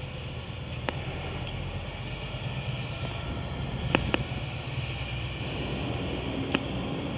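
Low, steady rumble of a heavy diesel engine, growing slightly louder, with a few short sharp metallic clicks.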